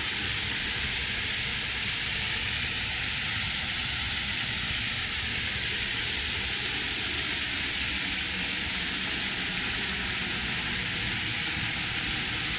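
Steady, even hissing noise that starts and stops abruptly.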